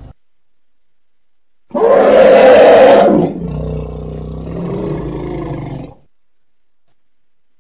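A roaring animal call presented as the voice of the extinct North African elephant: a loud, rough roar starting about two seconds in and lasting about a second and a half, then a quieter, lower rumbling tail that cuts off a few seconds later.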